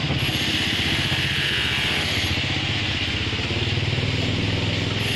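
An engine running steadily at an even pace, with a steady hiss above it.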